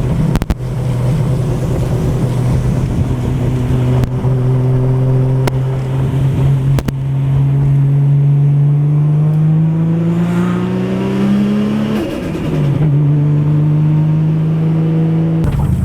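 Nissan Skyline R34 GT-R's tuned RB26 twin-turbo straight-six heard from inside the cabin, running under load. Its note climbs steadily for several seconds as the car accelerates, drops suddenly at a gear change about twelve seconds in, then holds steady.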